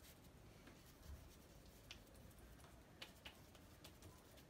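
Near silence with faint paintbrush strokes on paper and a few light clicks.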